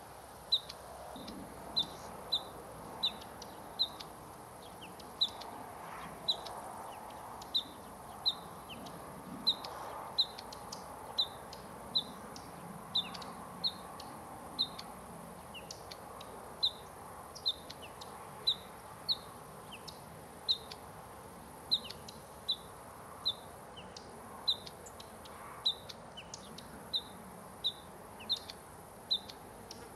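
Bluethroat calling: short, high call notes repeated at an even pace, about one and a half a second.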